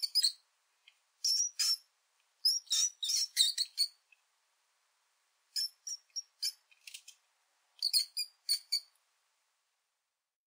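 Mouse squeaking sound effects: short, high-pitched squeaks in quick runs of a few at a time, about five runs separated by silent gaps.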